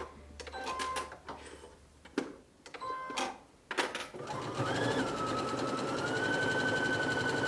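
Electric sewing machine sewing a straight-stitch seam. After a few clicks, the motor starts about four seconds in and runs with a whine that rises and then holds steady.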